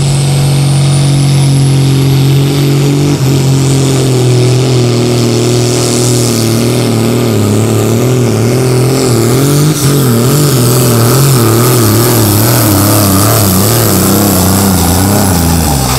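Diesel engine of a green John Deere Super Sport pulling tractor at full throttle: held steady at first, then labouring with a wavering pitch as it drags the weighted sled down the track, and dropping off right at the end of a full pull. A thin high whine climbs over the first few seconds.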